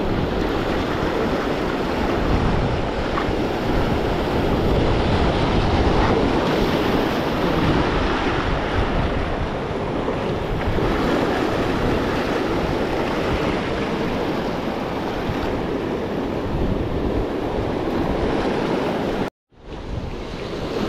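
Ocean surf washing and breaking over jetty rocks, a steady rush of water, with wind rumbling on the microphone. The sound cuts out for a moment near the end.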